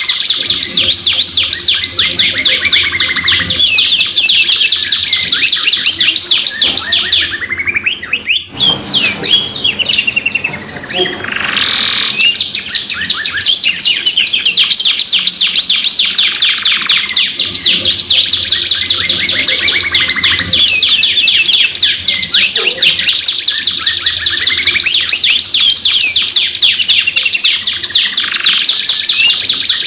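Domestic canaries singing a long, loud song of rapid rolling trills and chirps without pause, except for a brief drop and break in the song about eight seconds in.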